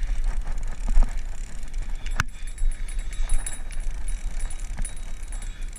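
A fishing reel being cranked while fighting a walleye: a steady run of fine mechanical clicks and rattles over a low rumble on the microphone, with one sharp click about two seconds in.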